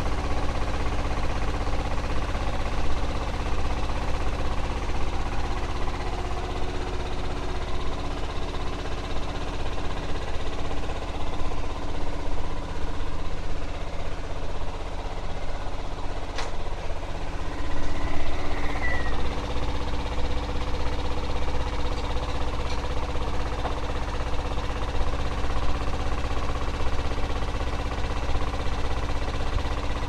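Hotpoint front-loading washing machine running mid-cycle: a steady low hum with a whirring drone. A single sharp click comes just past halfway, and the drone's pitch shifts slightly soon after.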